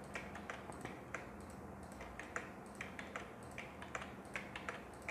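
Computer mouse and keyboard clicks, sharp and irregular, a few a second, as a checkbox is pasted into one table cell after another, over a faint steady hum.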